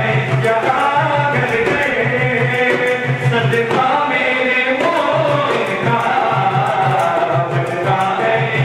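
A manqabat, an Urdu Sufi devotional song, sung in a melodic line over a steady, repeating drum beat.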